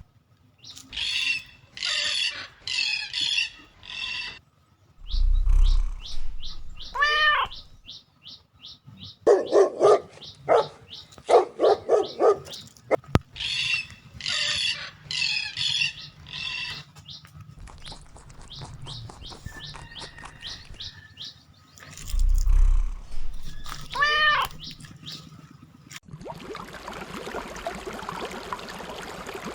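Pet animal calls: runs of high bird chirps and squawks mixed with lower yelping calls. The same sequence comes round twice, and a steady hiss follows near the end.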